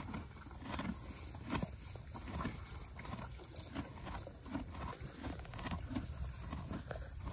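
Horses eating hay close up: rapid, irregular crunching and rustling as they pull at and chew mouthfuls of dry hay. A steady high insect trill runs underneath.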